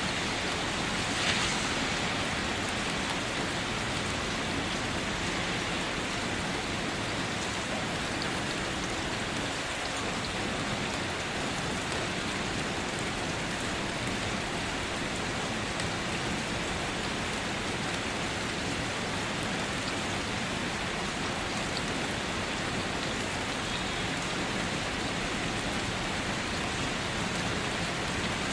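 Steady rain falling on a surface: a dense, even hiss of many drops, with one slightly louder spatter about a second in.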